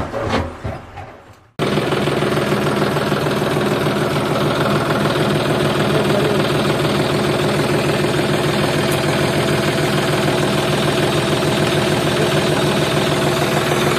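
Small stones clattering into a plastic toy trolley, cut off abruptly about one and a half seconds in by a tractor engine running steadily.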